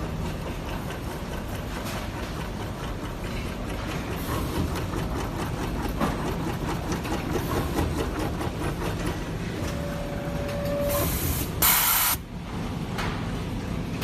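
An automatic LED strip soldering machine running, with a steady mechanical clatter. About ten seconds in a steady tone sounds for about a second, and a loud, short hiss follows shortly after, about eleven and a half seconds in.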